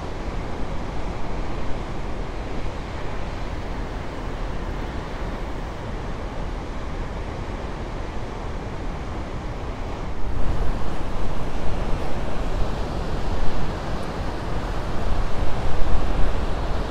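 Surf breaking on the beach below, a steady wash of waves, with wind buffeting the microphone; the wind gusts louder and more unevenly from about ten seconds in.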